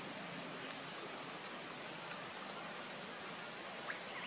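Steady, even hiss of background noise with no distinct events, and a faint short click just before the end.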